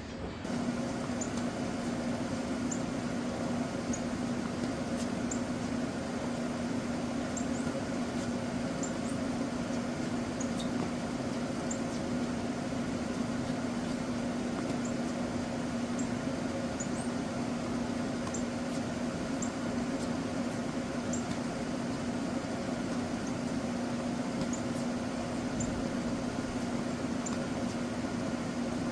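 A steady mechanical hum with a low, even tone, like a fan, air conditioner or idling engine, with faint short high chirps scattered throughout.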